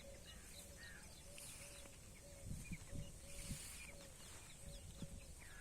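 Faint outdoor birdsong: many short chirps, with a soft repeated call about twice a second, and a few dull knocks in the middle.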